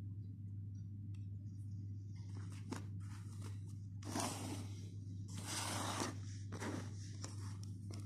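Handling noise: a Zippo lighter being set into its box and the packaging moved, a series of short scraping, rustling spells with a few sharp clicks. A steady low hum runs underneath.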